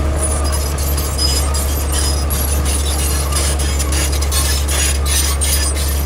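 Komatsu D41E crawler bulldozer's diesel engine running steadily under load as it pushes gravel with its blade, with its steel tracks clanking and the gravel crunching in a rapid, irregular clatter.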